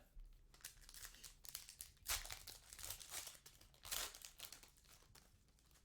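Plastic wrapper of a trading-card pack crinkling as it is torn open and handled, in faint crackles with louder bursts about two and four seconds in.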